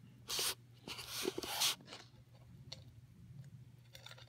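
Fork scraping on a ceramic plate as a slice of crumbly-crusted cheesecake is cut and lifted out: two short scrapes in the first two seconds, then a few light clicks.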